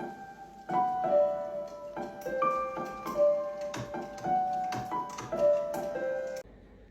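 Piano playing a simple melody of held single notes, which stops abruptly near the end.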